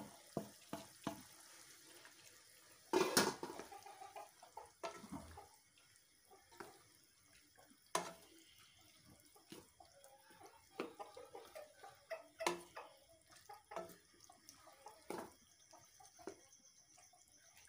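Wooden spoon stirring boiled chickpeas through a wet tomato masala in a frying pan: wet sloshing with many short knocks and scrapes of the spoon on the pan. The loudest clatter comes about three seconds in.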